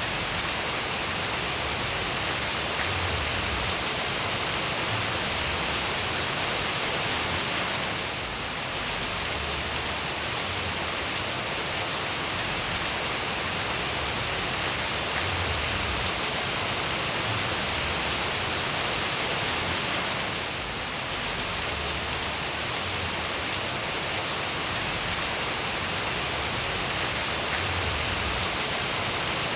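Steady, heavy rain falling on surfaces as an even, dense hiss, dipping briefly in level twice.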